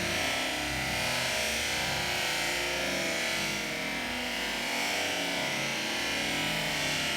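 Background music playing at a steady level.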